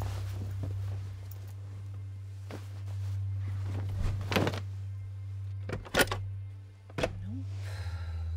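A steady low drone with a run of sharp thuds over it, about five in all, the loudest two close together about six seconds in.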